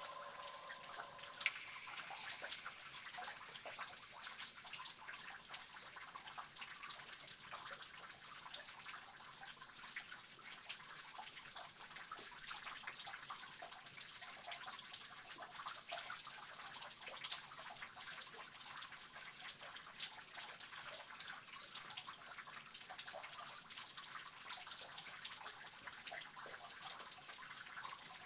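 Water dripping in a cave: many small drips over a soft, steady water hiss, with one louder drip that rings briefly about a second and a half in.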